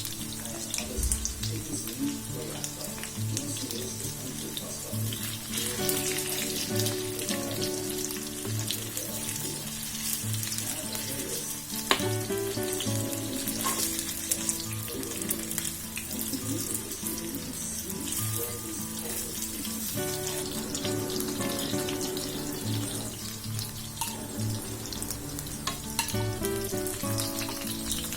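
Coated chicken pieces deep-frying in hot oil in a pan: a steady crackling sizzle. Background music with a regular beat plays over it.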